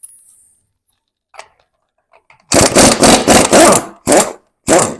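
Welder laying short stitch welds on steel frame-rail patches: a crackling run broken into several quick pulses about halfway in, then two short separate bursts near the end.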